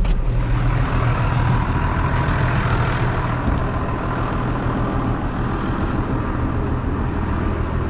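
Tractor engine running steadily at a constant speed, a low even hum.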